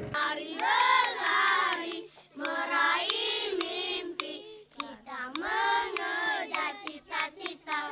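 Children singing a song in three phrases with short breaks between them, over a faint steady low hum.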